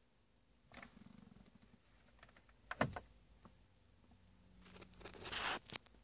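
Small mechanical clicks and handling noise, most likely the iDrive controller being turned and pressed: a quick run of ticks about a second in, a sharp double click around the middle, then a rustle and a couple more clicks near the end. No radio audio plays under them: the faulty ASK unit leaves the audio system silent even though the stations show on screen.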